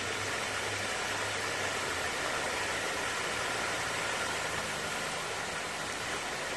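Fountain jets spraying and splashing, a steady even rush of water with a faint low hum underneath.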